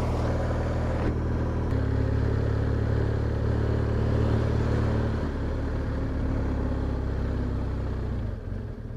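Motorcycle engine running at cruising speed with wind noise, heard from the rider's seat. The engine note steps to a new pitch about two seconds in, and the sound drops as the bike slows near the end.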